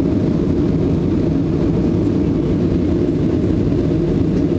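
Steady low engine and airflow noise of a jet airliner heard from inside the passenger cabin as it climbs out after takeoff.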